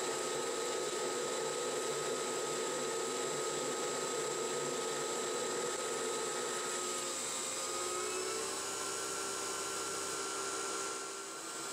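CNC-converted Harbor Freight 9x20 benchtop lathe taking a carbide cut in steel at 700 rpm, 0.020 in deep at 4 in/min: a steady motor and belt-drive whine over the hiss of the cut. The whine's pitch wavers and shifts up slightly about seven to eight seconds in, and the sound eases briefly near the end.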